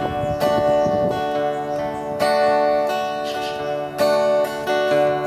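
Steel-string acoustic guitar strummed in slow chords: about four strokes, each chord left to ring out before the next.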